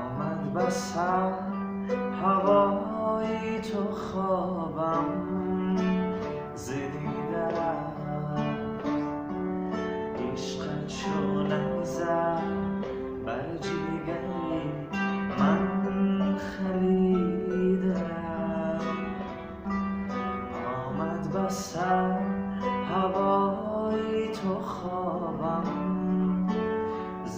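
Qanun, a plucked trapezoidal zither, played in quick runs of plucked notes, with a man singing a melody over it.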